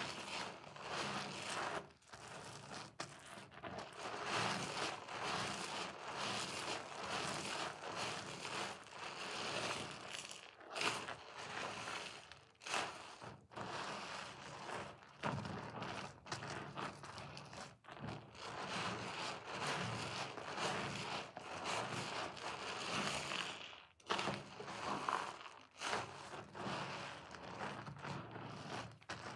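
Soaked bar of soap and a sponge squelching and crackling as hands squeeze and rub them in thick lather, in an irregular run of wet squeezes.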